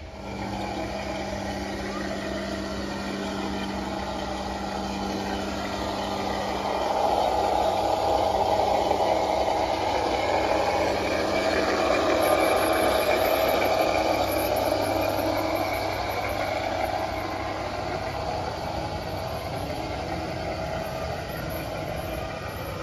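Large-scale garden model train running along its track: a steady electric-motor hum over the rumble of wheels on the rails. It grows louder about a third of the way in, stays loudest through the middle as the train passes close, then eases off.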